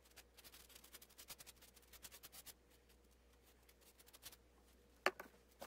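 Near silence: room tone with faint scattered ticks, then two short clicks near the end.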